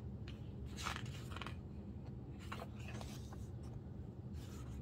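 Pages of a photo book being turned and handled: several short paper rustles and crinkles.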